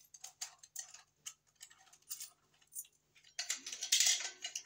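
Small junction box of a canless LED recessed light being handled and worked at by hand: a run of light, irregular clicks and ticks, with a louder burst of clicking and rattling about three and a half seconds in.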